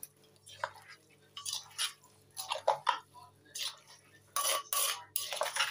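A spoon tossing and mixing wet papaya and noodle salad in a clay mortar: irregular scrapes against the earthenware and wet squishes, about half a dozen in a row.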